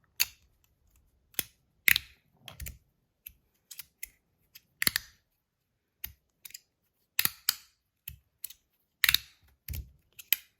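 Stainless steel Rapt magnetic fidget slider fitted with plastic inserts and strong magnets, worked back and forth by hand, the slides snapping into place with sharp clicks. About fifteen clicks come at an uneven pace, sometimes in quick pairs.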